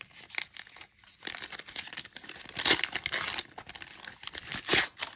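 Foil wrapper of a 1990 Upper Deck baseball card pack being torn open and crinkled, in a string of crackling rustles, loudest about two and a half and about four and a half seconds in.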